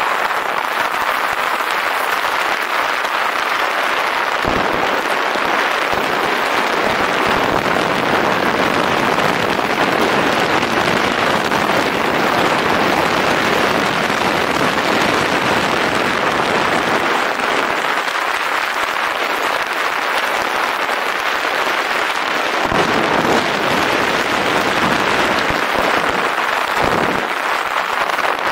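Steady rushing noise of wind blowing over the camera's microphone, mixed with the crackling hiss of bicycle tyres rolling over a rough track on a fast downhill ride.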